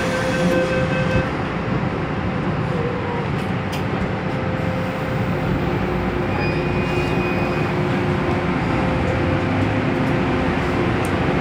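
Inside an MTR M-Train car as it pulls out of a station: a steady rumble, with a held warning tone that stops about a second in. Motor tones come in about halfway through as the train starts moving.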